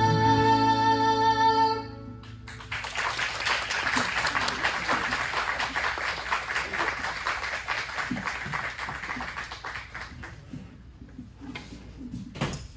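A fiddle and acoustic guitar tune ends on a held final chord about two seconds in. The audience then applauds, which tapers off after about eight seconds. There is one brief thump near the end.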